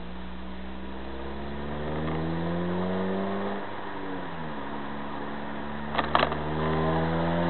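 Four-cylinder car engine heard from inside the cabin, pulling up through the revs, dropping in pitch at a gear change a little over three seconds in, then climbing again. A few sharp clicks about six seconds in.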